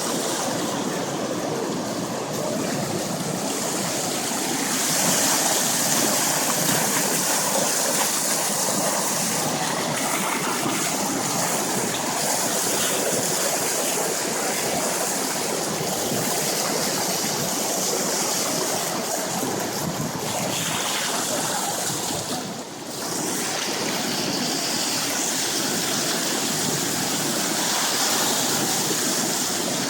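Sugar Creek in flood, its high, fast water rushing steadily past; the creek has not yet crested. The sound dips for a moment about two-thirds of the way through.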